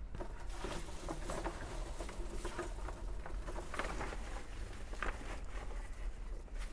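Irregular rustling and scratching of potting soil being dug through and moved by hand while sweet potatoes are harvested from a container.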